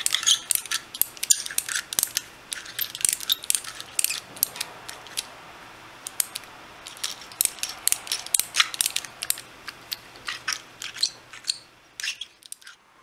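Adjustable hand reamer worked by hand against a 4130 chrome-moly steel barrel tube, giving irregular sharp metallic clicks and light scraping that stop about a second before the end.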